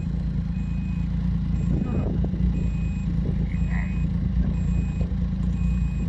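Snowmobile engine idling in reverse gear, with its reverse warning beeper sounding a short high beep about once a second.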